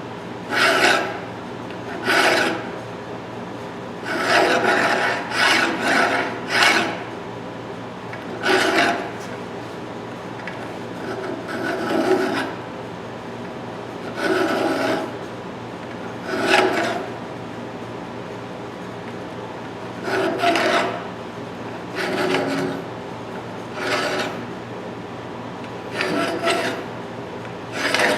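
A hand file scraping across the jaw teeth of a 12-inch RIDGID pipe wrench in separate strokes about every one to two seconds, with a quicker run of strokes a few seconds in. The strokes are sharpening the rusty, pitted grooves.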